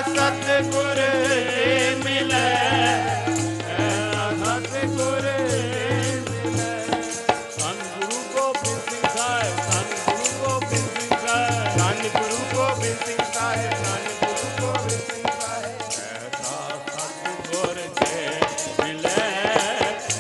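Sikh kirtan: voices singing over harmonium and tabla, with a fast, steady jingling of metal percussion running through it. The singing is strongest in the first seven seconds, and after that the instruments carry on with lighter singing.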